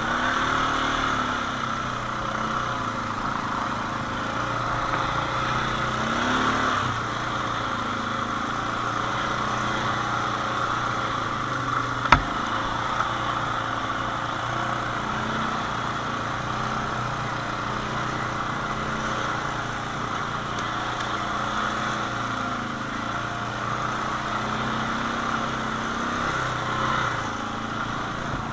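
ATV engine running under way, its pitch rising and falling as the throttle is worked, with one sharp knock about twelve seconds in.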